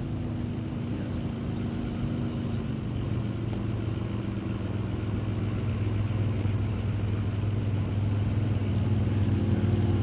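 A 4x4 truck's engine running steadily at low revs, getting gradually louder as the vehicle comes closer.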